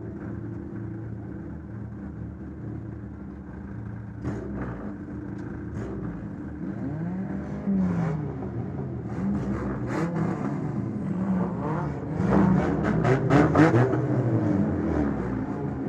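Demolition derby car's engine running, then revving up and down repeatedly, with sharp knocks and bangs, most of them bunched together near the end.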